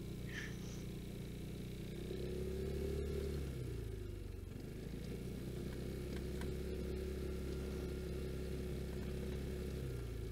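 Vespa GTS scooter's single-cylinder engine running under way, heard muffled. Its pitch rises about two seconds in, drops back a second and a half later, then holds steady.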